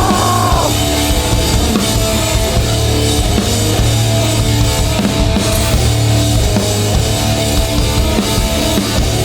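Live hardcore punk band playing loud, with distorted guitars, bass and a pounding drum kit and no vocals.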